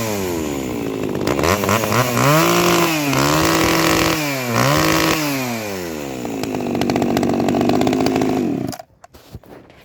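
Echo 3300T two-stroke chainsaw engine revved repeatedly, its pitch rising and falling with each squeeze of the throttle. It then runs at a steady speed for a couple of seconds and cuts off suddenly near the end.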